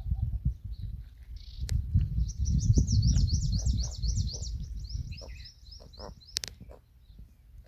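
A small bird's rapid run of short, high, rising chirps, about six or seven a second, from about two to five seconds in, over a loud uneven low rumble.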